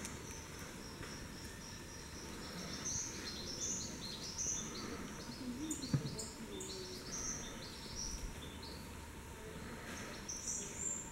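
Rainforest ambience: a continuous run of short, high-pitched chirps, roughly two a second, from calling birds and insects. A single sharp click comes about six seconds in.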